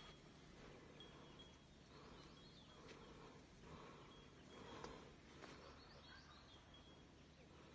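Near silence: faint forest ambience with a few brief, faint, high bird chirps and an occasional soft click.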